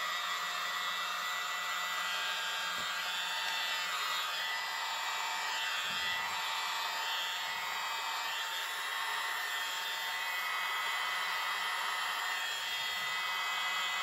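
Small handheld electric mini blower running steadily, a continuous whir with a high whine, blowing air across wet acrylic pour paint to spread it outward.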